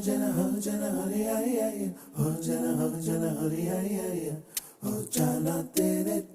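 A voice singing a melodic Telugu song with little accompaniment, with a few sharp clicks in the second half.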